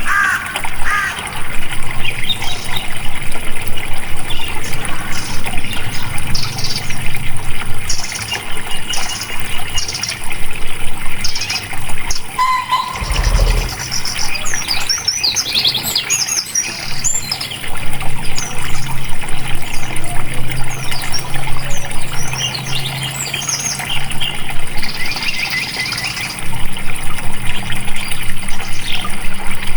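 Water flowing steadily, with birds chirping over it. A brief low thump comes about 13 seconds in.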